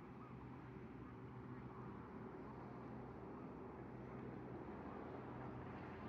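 Faint, steady low engine drone over an even outdoor background hiss.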